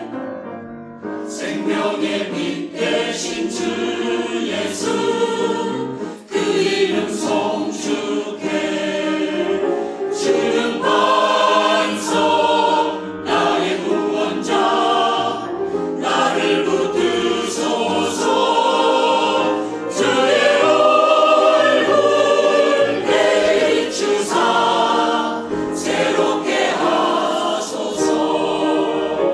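Mixed church choir of men and women singing a Korean anthem in parts with piano accompaniment, swelling to its loudest about two-thirds of the way through.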